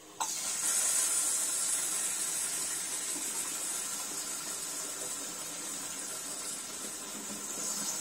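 Tap water spraying from a hand-held shower-spray hose into a tabletop dishwasher's manual-fill tank, starting just after the beginning as a steady hiss of running water.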